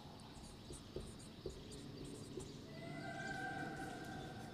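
Faint scratching and light squeaks of a marker writing on a whiteboard, with a few small taps. A faint, held, steady-pitched tone comes in about three seconds in.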